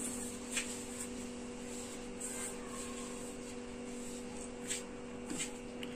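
Hands kneading flour and water into a stiff dough in a steel bowl: faint rubbing and squishing with a few light taps against the bowl. A steady low hum runs underneath.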